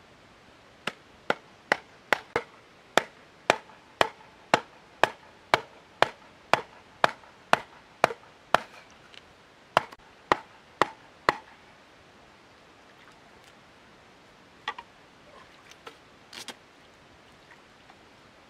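Wooden club pounding a bamboo stake into wet mud: about twenty sharp wooden knocks, roughly two a second, stopping about eleven seconds in, then a couple of fainter knocks a few seconds later.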